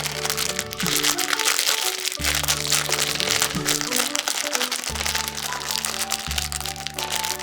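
Background music with held bass notes and a melody, over dense crinkling and crackling of wrapping being handled, typical of foil being torn off a chocolate surprise egg.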